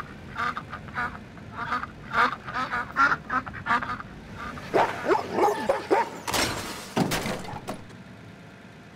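Dog barking in quick short yips, about three a second, then giving wavering, howl-like cries, followed by a brief rush of noise.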